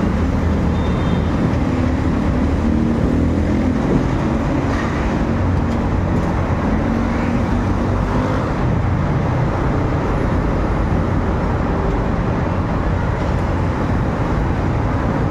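Steady road traffic: motorcycles and cars passing close by on a busy road, their engines making a continuous low hum and rumble.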